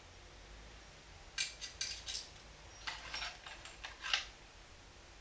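Small metal Russian medals clinking against one another as they are handled, in two short runs of light clinks, the second about halfway through.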